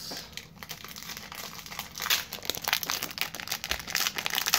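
Foil wrapper of an Upper Deck hockey card pack crinkling and tearing as it is pulled open by hand: a dense crackle that gets louder about two seconds in and again near the end.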